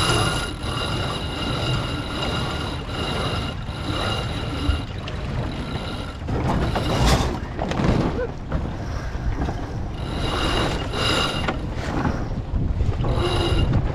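Wind buffeting the microphone and water rushing past a racing sailboat's hull, with a high whine that comes and goes at the start, about ten seconds in and near the end.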